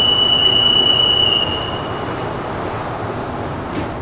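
Metro train's door-closing warning: one steady high-pitched tone that fades away about two seconds in, over the even hum of the train standing at the platform.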